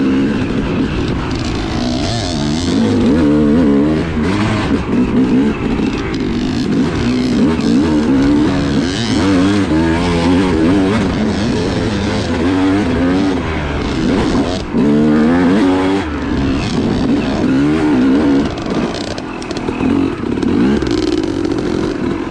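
Yamaha YZ250 two-stroke dirt bike engine heard from the rider's helmet, its revs climbing and falling over and over as the throttle is worked through a rough, rutted trail. Near the end the engine drops back as the bike slows.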